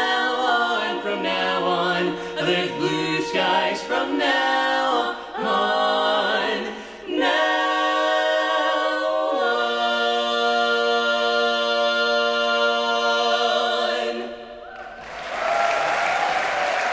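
A mixed barbershop quartet singing a cappella in close four-part harmony, ending on a long held final chord of about five seconds. Near the end the audience breaks into applause.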